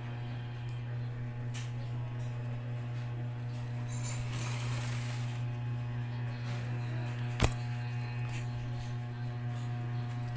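Steady low electrical hum, with one sharp click about seven and a half seconds in.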